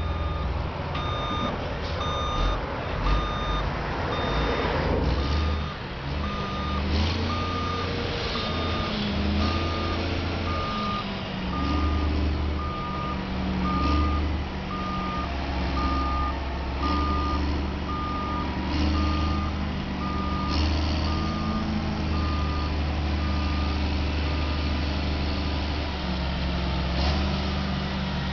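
Heavy truck's reversing alarm beeping at a steady pace, a little more than once a second, over the low steady running of the truck's engine. The beeping stops near the end.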